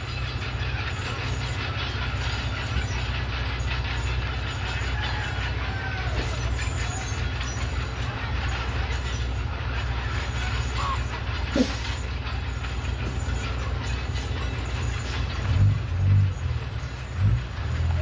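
Komatsu D31PX crawler bulldozer's diesel engine running steadily with a low drone, with a single sharp click about halfway through and a few heavier low thumps near the end.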